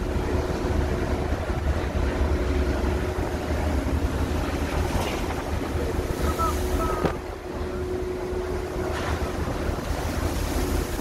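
Wind buffeting the microphone over the low rumble of a boat's engine and water washing along the hull, with a steady machinery hum running underneath.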